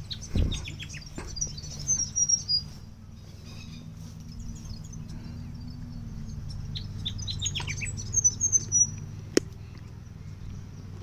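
Small birds chirping and twittering in two bursts of quick high notes and short falling calls, over a steady low hum, with a single sharp click a little after nine seconds.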